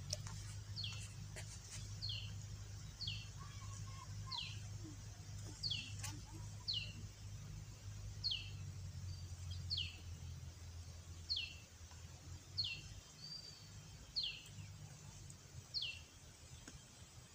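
A bird repeating a short, high call that falls in pitch, about once a second, over a low steady hum that fades out about ten seconds in.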